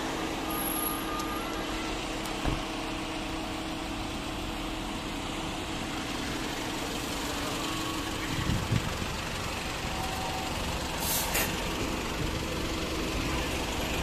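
A fire engine's diesel engine running as it pulls up close, over road noise, with a brief hiss of air brakes about eleven seconds in.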